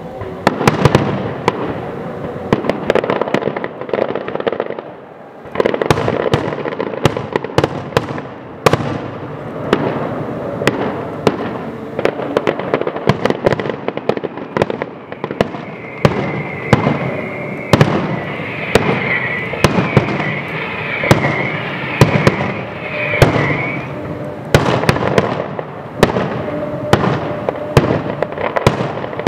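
Fireworks display: aerial shells bursting in rapid, overlapping bangs with continuous crackling between them. A high, wavering whistle runs through the middle stretch.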